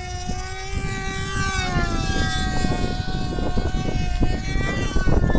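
High-pitched whine of pylon-racing model airplanes' small two-stroke engines, several at once, their pitches sliding down and crossing as the planes pass. Wind rumbles on the microphone, heavier from about two seconds in.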